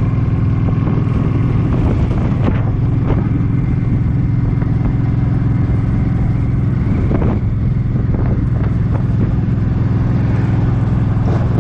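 Suzuki Boulevard M50's 805 cc V-twin engine running at a steady cruising speed, with wind noise from strong gusts on the microphone.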